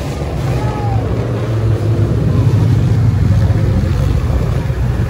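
Engines of a pack of motorcycles and maxi-scooters running together as they ride along a road, a steady low rumble.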